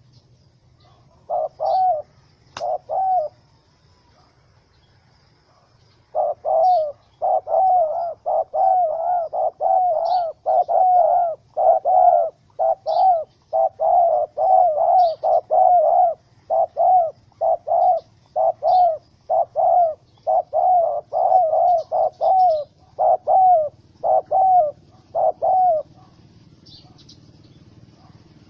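Spotted dove cooing in a long run of short, rapid notes: a couple near the start, then a steady string of dozens from about six seconds in, stopping shortly before the end. Faint high chirps of small birds sound behind.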